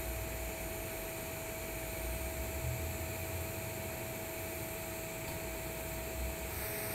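TIG welding arc burning steadily on a carbon-steel pipe root with flux-coated stainless filler rod: an even hiss with a faint steady hum.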